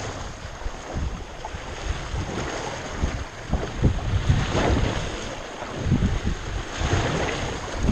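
Wind buffeting the microphone over choppy sea, with waves slapping and splashing against a boat's stern in uneven gusts and surges.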